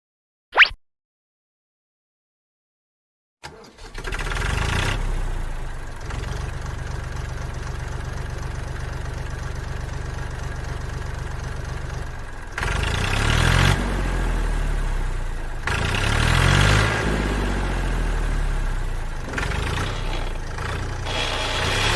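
A short sharp ping about half a second in, then silence. A vehicle engine starts about three and a half seconds in and runs steadily, then revs up and down repeatedly from about twelve seconds in.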